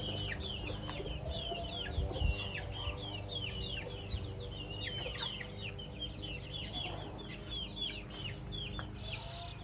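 Baby chicks peeping: many short, high chirps that fall in pitch, several a second and overlapping, over a low steady hum.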